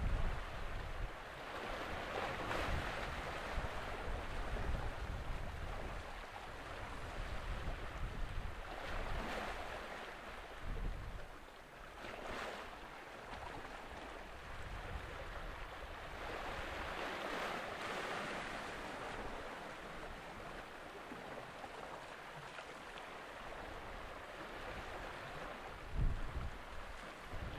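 Outdoor wind rumbling on the microphone over a wash of water that swells and fades every few seconds.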